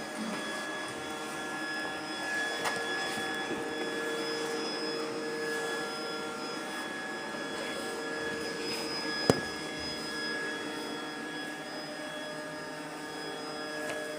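Hyundai X50 robot vacuum running steadily, a constant motor whine with a few held tones. A single sharp click sounds about nine seconds in, with a fainter one near the start.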